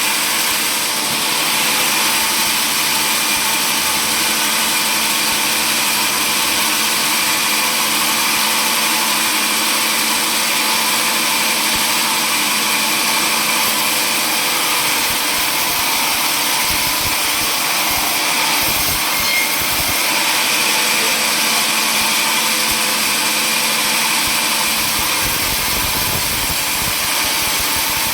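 Sawmill saw machinery running steadily, a continuous even machine noise with a few constant tones and no pauses.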